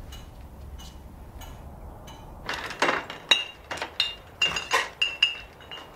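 Empty glass bottles clinking against each other as they are handled in plastic crates. A quick run of bright, ringing clinks starts about two and a half seconds in.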